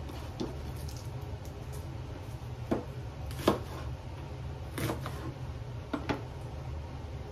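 A serrated kitchen knife chopping yellow onion halves on a cutting board: about six short knocks at uneven intervals as the blade hits the board, the loudest about three and a half seconds in, over a steady low hum.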